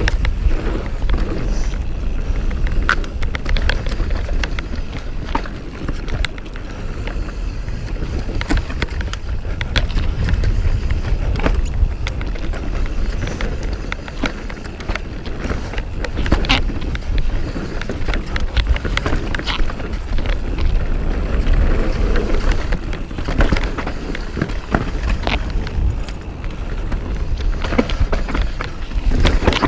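Mountain bike descending a dirt trail: tyres rolling over dirt and roots with frequent irregular clicks and rattles from the bike over bumps. There is a steady deep rumble of wind on the microphone throughout.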